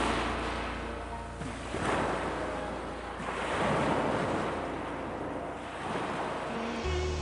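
Ocean waves surging and washing in repeated swells, one about every two seconds. Soft sustained music tones sit underneath and come back stronger near the end.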